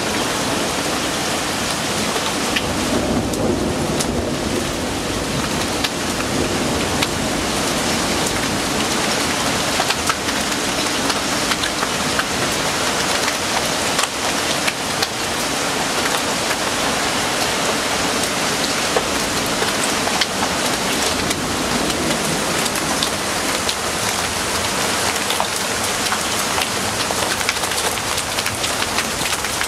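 Heavy thunderstorm downpour, rain pouring steadily with many sharp ticks of drops striking. A low rumble of thunder is heard in the first few seconds.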